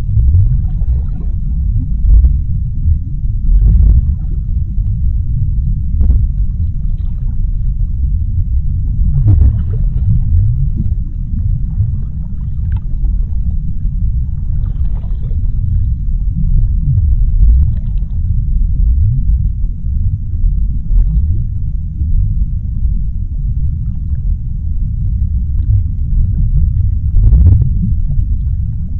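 Deep-sea underwater ambience: a steady, loud low rumble, with faint brief higher sounds surfacing now and then.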